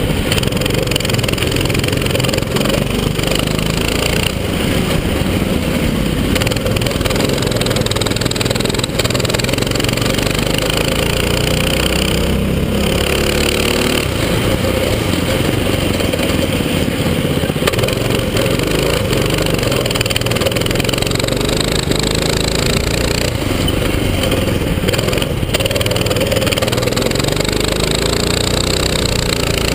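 Go-kart engine heard from on board at racing speed, its pitch rising and falling continuously as the throttle opens and closes through the corners.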